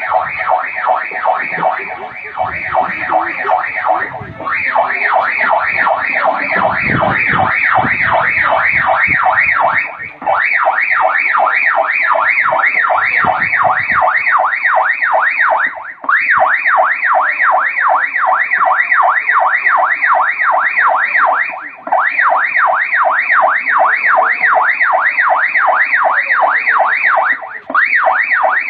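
Electronic siren warbling rapidly up and down in pitch, in runs of about six seconds separated by short breaks. Some low rumbling underneath during the first half.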